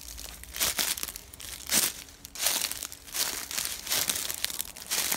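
Dry leaves and brush crunching and rustling in irregular bursts, as someone moves and handles things in woodland undergrowth.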